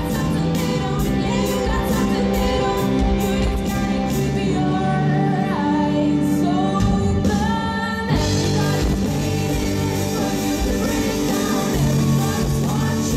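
Live rock band playing: electric guitars, bass and drums, with singing over them and notes bending in pitch in the middle. About eight seconds in the cymbals come in and the band plays fuller.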